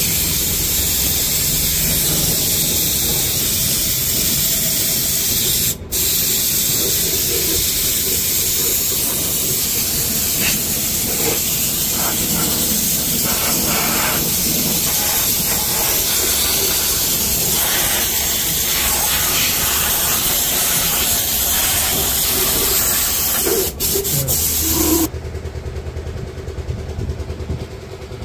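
Compressed-air spray gun hissing steadily as it sprays rubberized anti-rust underbody coating, with the trigger let go twice for a moment. The spraying stops near the end, leaving a lower steady hum.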